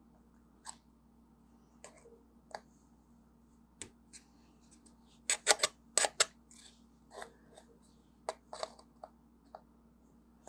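Pliers clicking and scraping against the original iPhone's thin aluminium back plate as it is bent back into shape: scattered, irregular sharp clicks, the loudest cluster about five to six seconds in.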